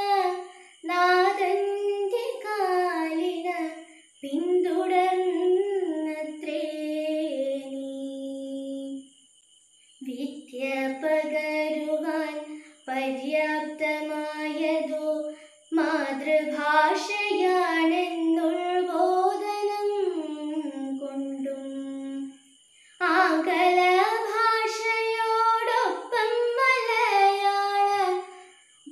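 A single woman's voice singing a melodic song without instruments, in phrases of a few seconds broken by short pauses, the longest about nine seconds in.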